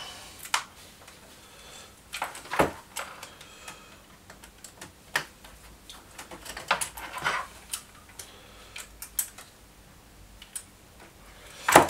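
Irregular small clicks, taps and knocks of screws, a screwdriver and a hard drive enclosure's parts being handled on a workbench, with a sharper knock near the end.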